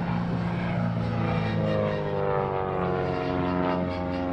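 DHC-1 Super Chipmunk's piston engine and propeller droning during a steep aerobatic climb. The pitch slides gradually lower from about a second and a half in.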